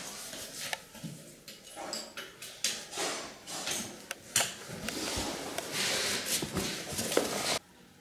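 Irregular scraping and rubbing with short clicks and light knocks from hand work on the ceramic tile and aluminium edge trim of a fireplace hearth, cutting off abruptly near the end.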